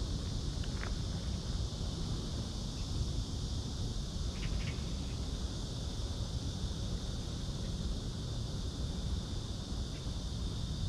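Steady high-pitched insect drone with a constant low rumble underneath, and a couple of faint short chirps about four and a half seconds in.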